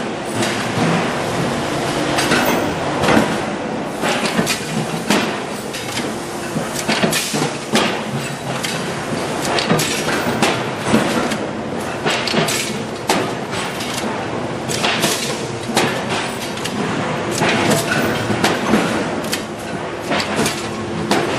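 Workshop noise around a mechanical punch press working stainless-steel sink bowls: frequent, irregular metal clanks and clatter over a steady machine hum.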